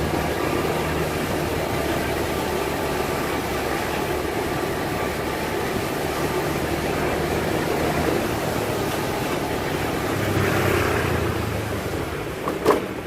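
A steady low mechanical hum, swelling briefly near the end, with a couple of sharp knocks just before it stops.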